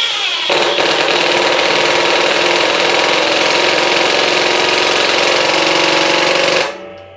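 Hercules 20V brushless compact impact driver on speed one driving a screw into a wooden beam. The motor spins up, and about half a second in the hammer mechanism starts impacting, a fast, even rattle that runs steadily until the screw is seated and it stops near the end.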